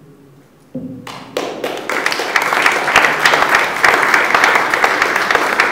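Audience applause: clapping starts about a second in and quickly swells to steady, dense clapping.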